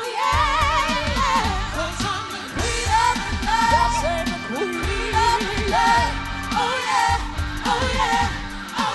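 A female vocal group singing a pop song into microphones, with vibrato on the held notes, over backing music with a steady beat.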